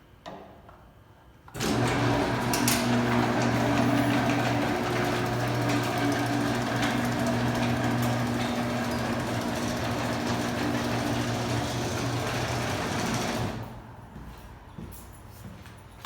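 Electric garage door opener running the door through its travel, now working on a newly replaced lift cable. A steady motor hum starts abruptly about a second and a half in and stops a couple of seconds before the end.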